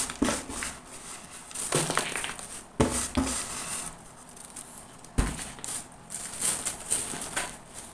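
Polythene grow bag crinkling and rustling as rubber-wood sawdust is tipped into it from a plastic basin and the bag is handled, with a few sharp knocks.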